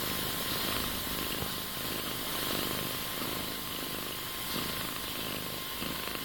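Ragdoll kitten purring steadily while being stroked, over a constant hiss.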